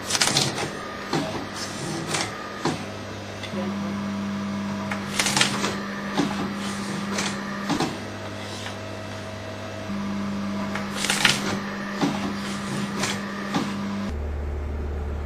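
Morso EH electro-hydraulic mitre guillotine at work: a steady motor hum with three sharp cutting strokes about five to six seconds apart and lighter clatter between them.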